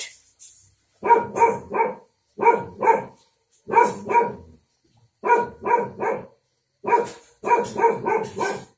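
A dog barking repeatedly, in quick runs of two or three barks with short pauses between.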